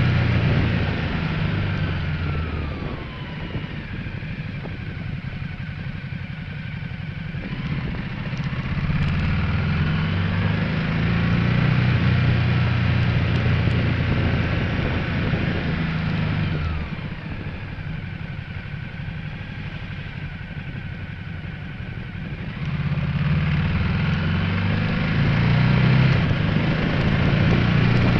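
Ducati Multistrada 1200S's L-twin engine running on the move. Its pitch winds down near the start and again about halfway, it settles to a quieter run for a few seconds each time, then picks up louder again as it accelerates.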